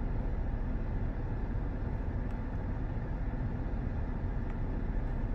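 A 2020 Toyota RAV4 running in park, heard from inside the cabin as a steady low hum and hiss.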